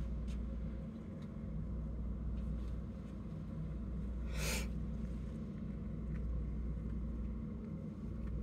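Steady low hum of room tone. About halfway through, a single brief rustle as a hand moves the bindweed vines on the gel plate.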